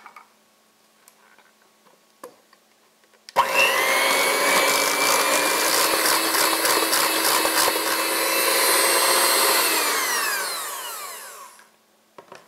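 Electric hand mixer switched on about three seconds in, running steadily with a whine as its beaters beat cream-cheese and pumpkin frosting in a stainless steel bowl. It is switched off near the end and its pitch falls as it spins down.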